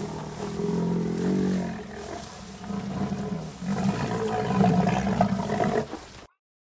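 Deep, drawn-out calls of a large animal: one long call, then a second longer one, cut off abruptly a little past six seconds.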